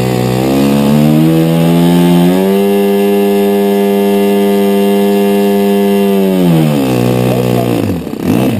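Radio-control model engine throttled up over about two seconds, held at a steady high speed for about four seconds, then throttled back down to idle, with a short blip of throttle near the end.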